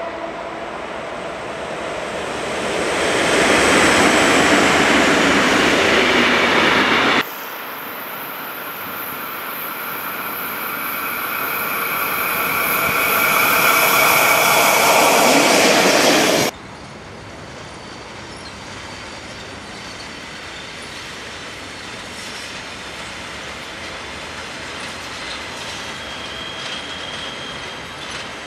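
Swiss electric trains passing, in three abruptly cut shots. First a freight train headed by Re 6/6 locomotives grows loud as it goes by. Next a Re 4/4 II hauling passenger coaches builds to a peak, with a high-pitched wheel squeal. Last comes a quieter, steady rumble of an Re 420 locomotive moving through a yard.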